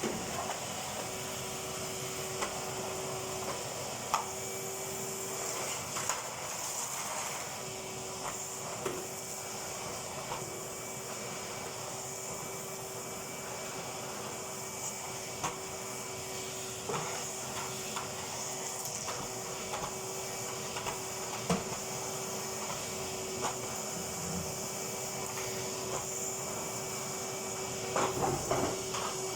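Vacuum cleaner running steadily, a constant motor whine over a hiss of suction, with scattered light clicks and knocks of the nozzle and pipe and a short run of louder knocks near the end.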